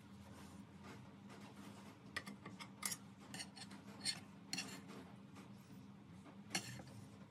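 Metal spoon clinking against a serving dish several times while scooping saucy chicken livers, over a low steady hum.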